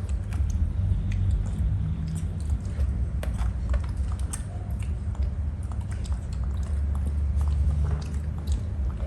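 A monkey chewing grapes: a run of many small irregular clicks and smacks over a steady low rumble.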